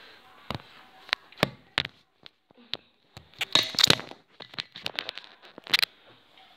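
Handling noise from the recording phone: a scattered run of sharp clicks and knocks, thickest around the middle, as the phone is moved about and set down on the sink.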